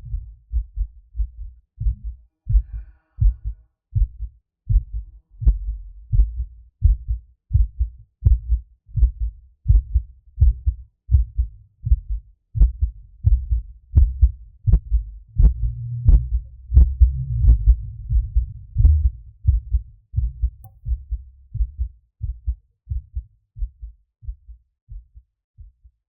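Human heartbeat heard through a stethoscope: a steady run of paired low thumps. For a few seconds past the middle a low whooshing fills the gaps between beats, and the beats grow softer near the end.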